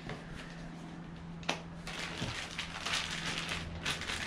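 Crinkling and rustling of parts packaging as car parts are handled and taken out of a box, with a single sharp click about a second and a half in.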